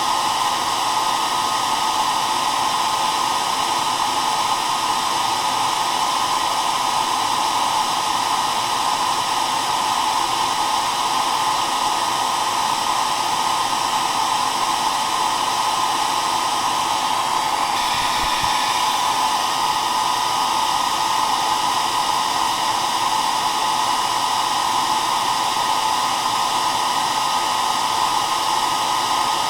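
Handheld hair dryer running continuously: a steady airy rush with a whine centred around 1 kHz, a slight shift in its tone about 18 seconds in.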